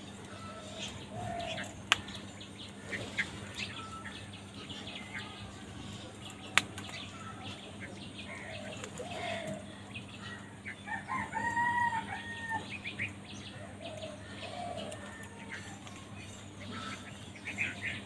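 House crows pecking at scattered grain on a concrete floor, with many small ticks and short bird calls now and then, and one longer arched call about eleven seconds in. Two sharp clicks stand out, about two and six and a half seconds in.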